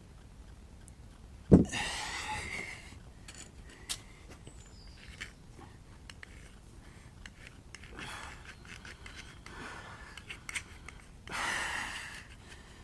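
Hand work on bait pump parts: a sharp knock about a second and a half in, then small clicks and scrapes, with two short rushes of heavy breath, one after the knock and one near the end.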